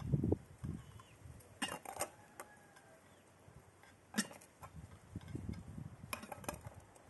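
Large glass jars and their lids clinking and tapping as they are handled. The clicks come in a few separate clusters: several about two seconds in, one near four seconds, and a few more around six seconds, some with a brief ring.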